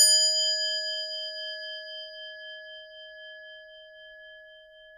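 A bell struck once, ringing out with several steady tones and slowly fading away.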